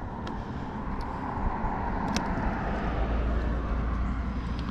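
Noise of a passing vehicle swelling and easing, with a low rumble. A few light clicks of the outboard's carburetor linkage being handled.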